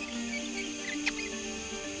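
Background music: a melody of held notes, each changing every few tenths of a second, with a few short high chirps.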